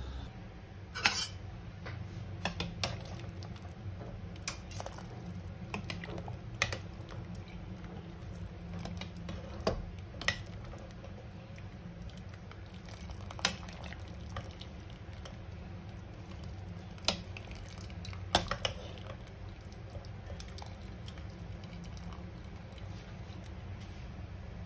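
A metal ladle and mesh strainer clinking against a pot as boiled meat is scooped out of its broth. There are a dozen or so sharp, scattered clinks, the loudest about a second in and twice near 17 to 18 seconds, over a steady low hum.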